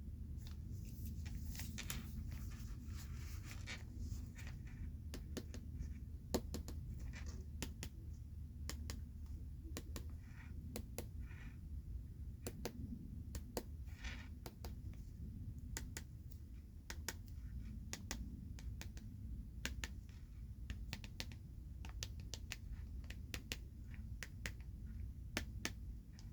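Hands handling oversized Pokémon cards: scattered sharp taps and clicks with a few brief scratchy rustles, over a low steady hum.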